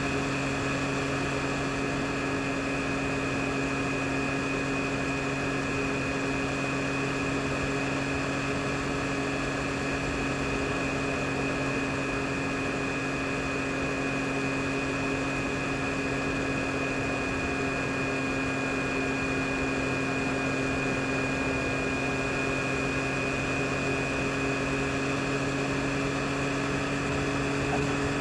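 2022 Yamaha MT-09 SP's 890 cc inline three-cylinder engine running at a steady speed while riding, over wind and road noise.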